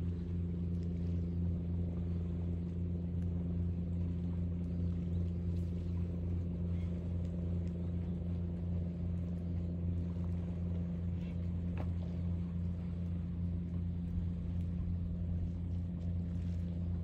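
A motor running steadily, a low even hum with a pitched drone that does not change in pitch or loudness.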